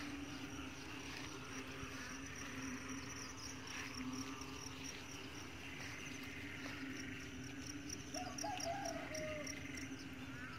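Faint rice-paddy ambience: insects trilling high up in a fast, even pulse, with scattered chirps and a short warbling call about eight seconds in. A steady low hum runs underneath.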